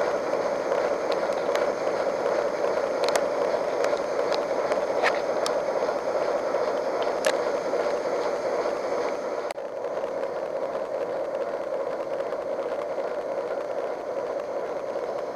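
Steady running noise of a slowly moving train heard from inside the carriage, with a few scattered sharp clicks. About nine and a half seconds in, the higher hiss drops away and the sound turns duller.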